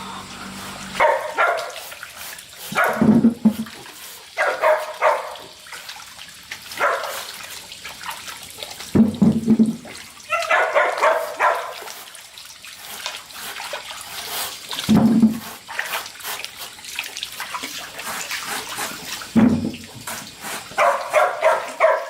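A dog barking in short bursts of quick barks, with a few low thuds between them.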